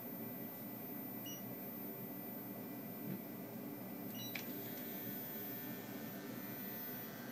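Ultrasound scanner running with a steady low hum and two short electronic beeps, about a second in and again just after four seconds, from its console as fetal measurements are taken.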